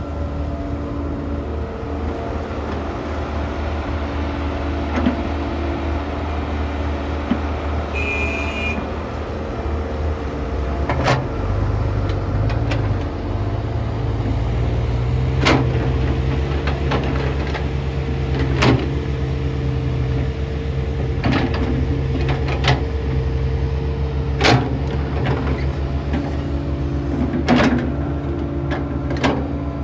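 Kobelco SK120-1 excavator's diesel engine running steadily, its pitch and load stepping up about eleven seconds in. Sharp clanks come every few seconds over the engine.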